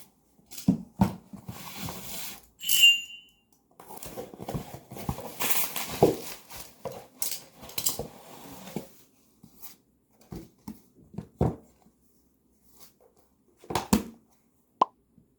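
Objects being handled: scattered knocks and stretches of rustling, with a short ringing clink about three seconds in.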